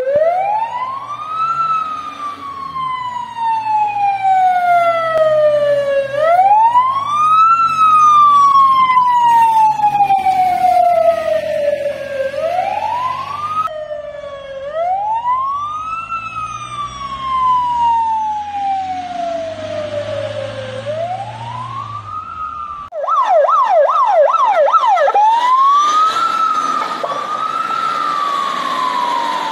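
Fire engine electronic sirens on an emergency run, in a slow wail that climbs quickly and falls slowly about every six seconds, over the vehicles' engines. About 23 seconds in the siren switches to a fast yelp for a couple of seconds, then to a quicker rising and falling wail.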